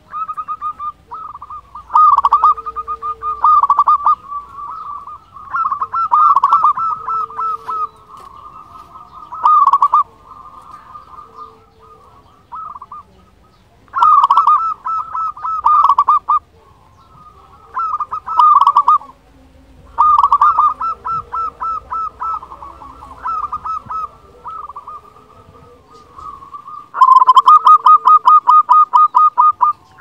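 Local zebra dove (perkutut) cooing in runs of rapid staccato notes, one run every few seconds, the longest and loudest near the end.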